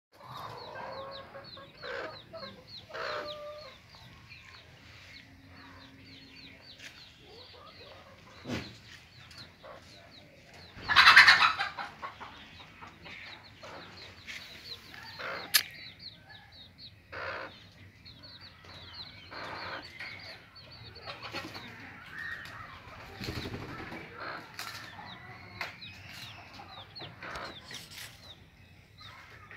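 Brooding black hen clucking, with her chicks peeping steadily from under her feathers in many short, high calls. About eleven seconds in there is one louder burst of sound lasting about a second.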